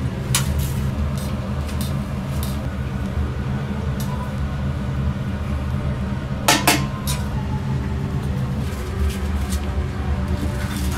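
Metal spatula and tongs clinking and tapping against a steel griddle plate in scattered knocks, the loudest a quick double clink about six and a half seconds in, over a steady low hum.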